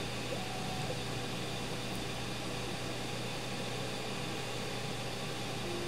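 Steady hiss with a low hum underneath, unchanging throughout: background room noise of the recording.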